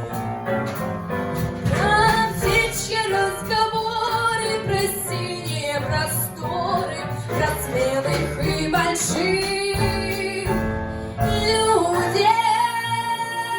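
A woman singing a lively song with instrumental accompaniment. Near the end she holds one long, steady note.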